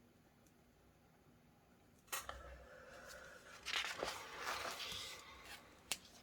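Rustling and handling sounds starting about two seconds in, with sharp clicks about two, four and six seconds in.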